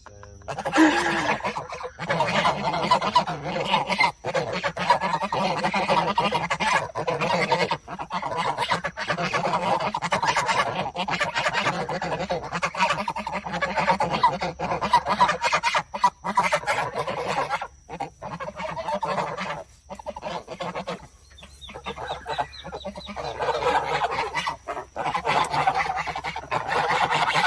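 A flock of domestic geese honking continuously, many calls overlapping. The calls ease off briefly about three-quarters of the way through, then build up again.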